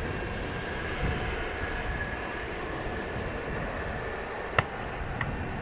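Jet airliner's engines running on the runway, a steady distant rumble and hiss with a faint high whine. A sharp click sounds about four and a half seconds in, with a smaller one just after.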